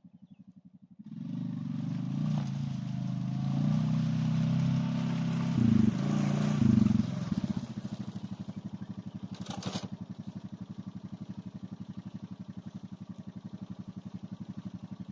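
Small vehicle engine running with a fast, even pulse. It grows louder about a second in, surges twice around six and seven seconds, then settles back to a quieter steady idle. There is a single short knock about ten seconds in.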